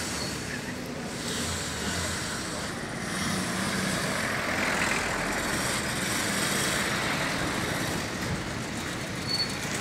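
Street traffic noise from passing road vehicles, swelling from about three seconds in and easing off near the end.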